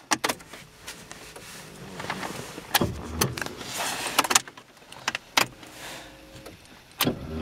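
Starter motor of a 1991 Ford Escort 1.4 CVH straining to crank the engine in hard frost, broken by several sharp clicks; the engine does not catch. The owner puts it down to a faulty starter rather than a cold-start problem.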